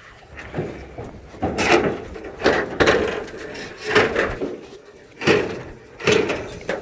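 Old wooden boards knocking and scraping against each other, an uneven series of sharp knocks about once a second.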